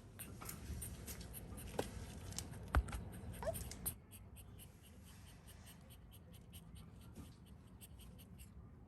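Close rustling and scratching handling noises with scattered clicks and one sharp knock about three seconds in. After about four seconds it drops to a quieter stretch with faint, regular ticking.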